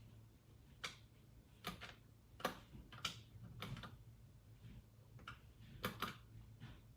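Faint, irregular clicking of the Mayflash F300 arcade stick's buttons and lever being worked, about a dozen clicks spread unevenly, over a low steady hum.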